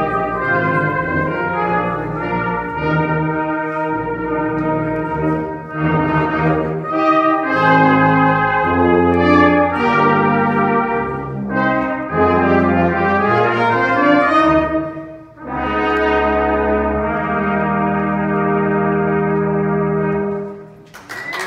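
Salvation Army brass band playing sustained chords with tubas underneath, breaking off briefly about fifteen seconds in, then holding a long final chord that fades out near the end.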